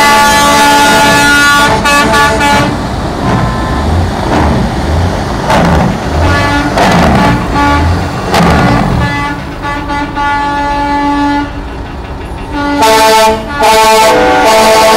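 Semi-truck air horns blaring in a multi-note chord, then the diesel engines of passing tractor cabs running and revving. The horns sound again near the end: a short blast, then a long one.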